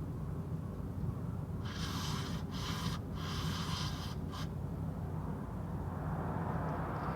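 Four short bursts of hissing, over about three seconds, over a steady low hum.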